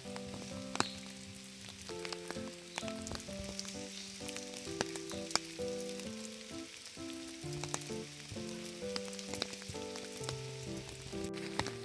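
Light background music: a plinking melody of short held notes over a steady crackling hiss.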